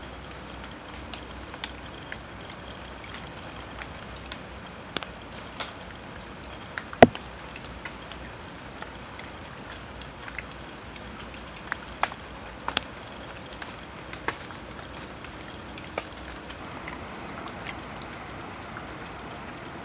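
Steady hiss of light rain with scattered sharp drips landing now and then, one much louder drip or tap about seven seconds in.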